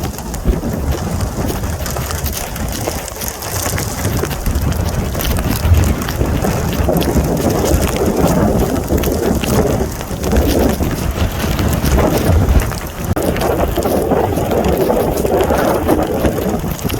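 Rain falling in a severe thunderstorm, with the storm noise swelling and easing in gusts.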